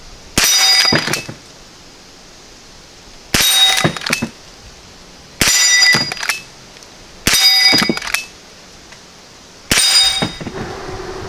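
Five shots from a Henry lever-action .22 rifle, about two seconds apart, each a sharp report followed by a short metallic ring, as the rifle knocks over targets one after another.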